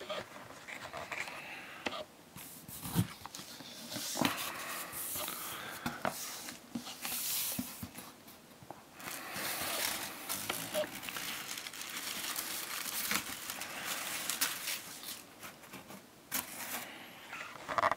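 A cardboard shipping box being handled by hand: flaps and panels rubbed, pushed and scraped, making irregular rustling with a few sharp knocks, and a thin packing sheet crinkling.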